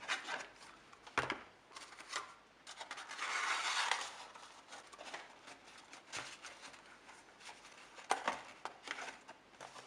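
Paper and a small cardboard box being handled and pressed together: light rustling and rubbing with a few small taps, and a longer rub about three seconds in.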